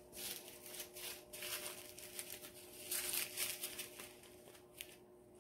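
Small plastic zip-lock bags of round diamond-painting drills crinkling and rustling as they are handled and shuffled, in uneven spells with a sharp click near the end. A faint steady hum runs underneath.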